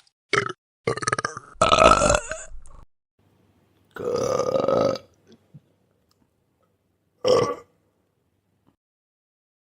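A string of separate burps, five in all, with silent gaps between them. A few short ones come first, the loudest and longest about two seconds in, a second-long one about four seconds in, and a short one past seven seconds.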